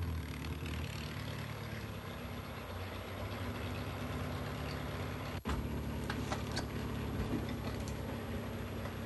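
Car engine idling steadily with a low hum, with a few sharp clicks about six to seven seconds in.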